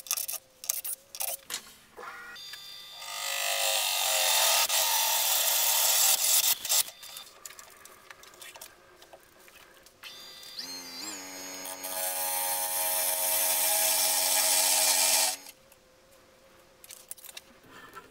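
Cordless drill at work on a spalted wood blank mounted on a lathe: a few sharp clicks, then the drill whines up and runs for about four seconds, cutting into the wood. Near the middle a motor whines up again and runs steadily with a loud hiss of cutting for about four seconds, then stops abruptly.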